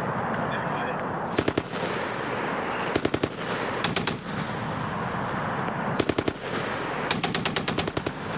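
Machine gun firing short bursts of a few rounds each, with pauses of about a second between them, then a longer burst of about nine rounds near the end.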